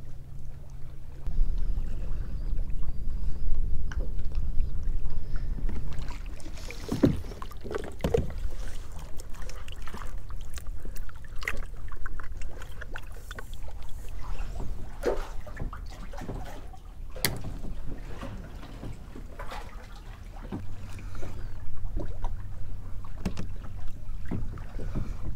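Wind buffeting the microphone and water moving around a fishing kayak, with a stretch of scattered knocks and clicks in the middle as gear and a bait bucket are handled on the kayak.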